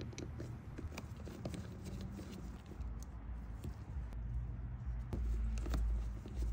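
Screwdriver turning out the small cover screws of a chainsaw carburetor, with scattered light clicks and taps of metal on metal as the tool and carburetor are handled. A low rumble grows louder in the second half.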